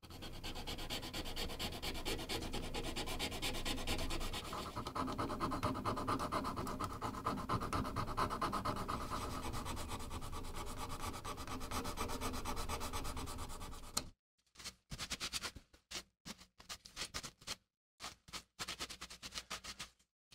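Sandpaper on a sanding stick rubbed rapidly back and forth over a carved wooden saw handle: a dense, continuous scratching for about fourteen seconds. After that it breaks into short, separate rubbing strokes with brief pauses between them.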